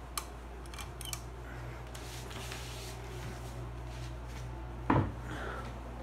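Hampton Bay St. Claire 52-inch ceiling fan switched to high: a few sharp clicks in the first second or so, then the motor runs with a steady low hum that strengthens about a second in. A single loud knock about five seconds in is the loudest sound.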